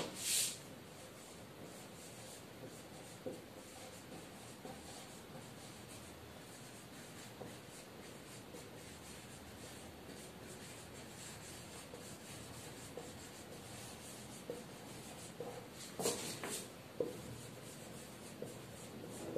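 Marker pen writing on a whiteboard: a faint run of short strokes, with a couple of louder ones just after the start and about three seconds before the end.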